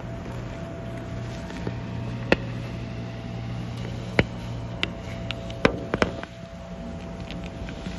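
A steady low machine hum with about half a dozen sharp, irregular clicks through it, bunched around the middle.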